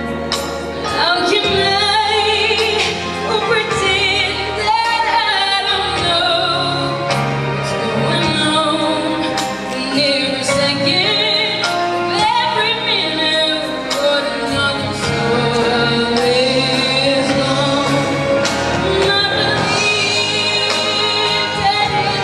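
Girl singing solo into a handheld microphone, with vibrato on long held notes, over a steady instrumental accompaniment.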